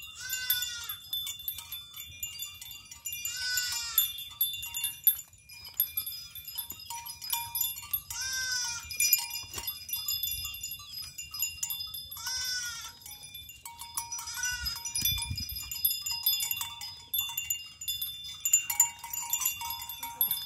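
Goats bleating, about five separate quavering bleats of under a second each, spread a few seconds apart. Short high ringing tones sound in the background throughout.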